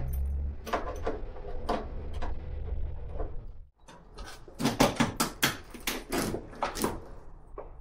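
Hand work on an old car's engine bay and fender: irregular metallic clicks, clunks and rattles of parts and tools being handled. They come thickest in the second half, over a low rumble in the first half.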